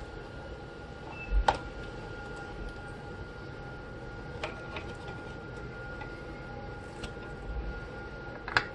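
Scattered clicks and knocks of computer hardware being handled and pulled apart: a sharp one about a second and a half in, a couple of lighter ticks, a couple of low thumps, and another sharp click near the end, over a steady faint hum.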